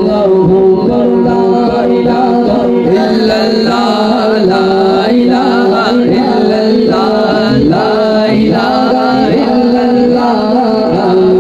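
Man singing a hamd, devotional praise of God, into a microphone: a melismatic, ornamented vocal line, strongest from about three seconds in, over a steady held tone underneath.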